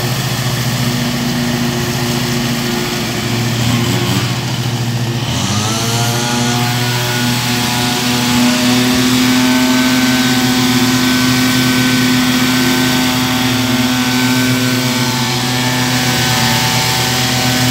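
Stand-on lawn mower's engine running steadily while cutting grass. About five seconds in, an engine revs up to a higher pitch and holds there.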